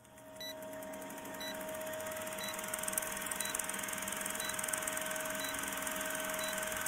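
Vintage film countdown leader sound effect: a steady whirring, rattling film-projector sound with a hum and crackle, and a short high beep once a second.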